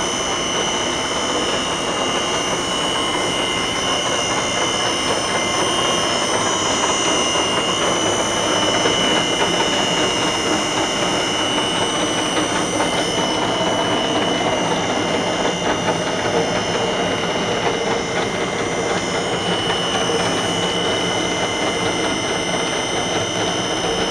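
Steady mechanical hum of running machinery with several constant high-pitched whines.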